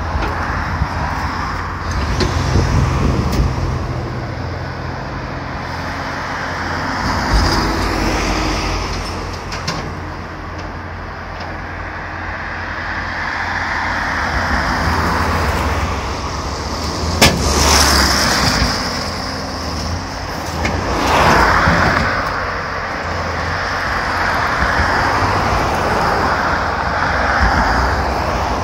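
Road traffic passing by, with cars swelling in and out, and wind rumbling on the microphone. There is a single sharp click partway through.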